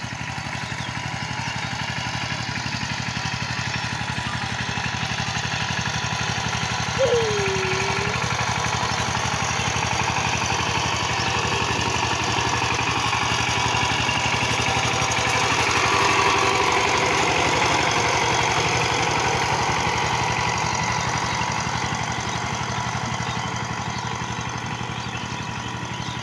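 12-horsepower Chang Tuo power tiller's single-cylinder diesel engine running steadily under load while it tills the soil, growing louder as the machine passes close and fading as it moves away. A short swooping call sounds once about seven seconds in.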